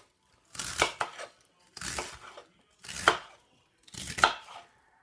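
Chef's knife slicing through Napa cabbage leaves onto a wooden cutting board, four strokes about a second apart.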